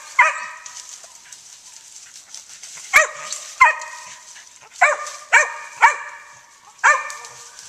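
A mountain feist barking at the foot of a tree, seven sharp barks at an uneven pace and most of them in the second half: a squirrel dog's tree bark, which signals that a squirrel has gone up the tree.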